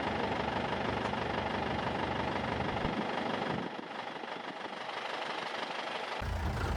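Safari jeep's engine running as it drives through the forest. The low rumble drops away a little under four seconds in, and a deep, heavier rumble comes in near the end.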